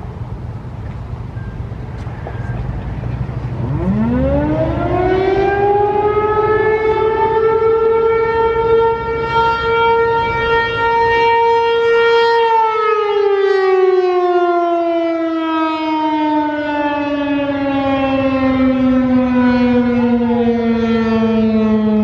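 American Signal T-135 AC/DC rotating siren giving a short test blast. About four seconds in it winds up quickly to a steady single tone and holds it for about five seconds, then winds down in a long falling pitch that is still sounding at the end. Before it starts there is only a low rumble.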